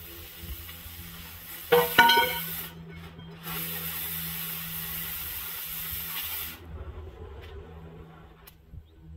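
Oxy-fuel cutting torch cutting a steel pipe: under a steady low hum, a loud hiss comes on about two seconds in with a sharp start and a brief whistle, drops out for a moment, then hisses on and cuts off a little past the middle.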